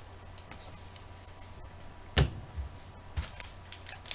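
Trading cards being handled and slid against one another, with faint rustles and clicks and a sharp knock about two seconds in, then a softer one a second later, over a low steady hum.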